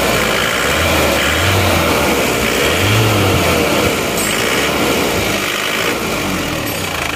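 Isuzu Panther turbo-diesel engine, just rebuilt with a new cylinder liner and piston rings, revved up and down several times, then settling back to idle near the end.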